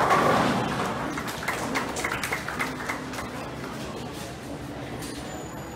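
Bowling ball hitting the pins: a sudden crash at the start, then about two seconds of pins clattering and knocking together as they fall, dying away into the alley's background noise.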